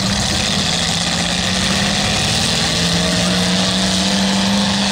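Several demolition derby cars' engines running and revving, loud and steady, with the pitch climbing a little in the second half.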